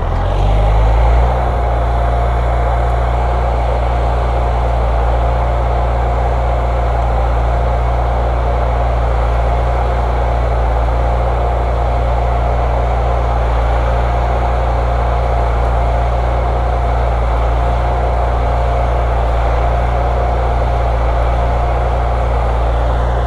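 An engine running steadily at a constant speed: a deep, even hum with a steady high whine over it.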